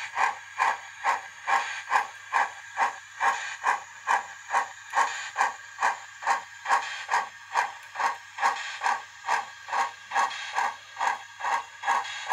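Model Garratt steam locomotive's sound decoder playing a steady run of exhaust chuffs with hiss, about three chuffs a second, as the locomotive runs along the track.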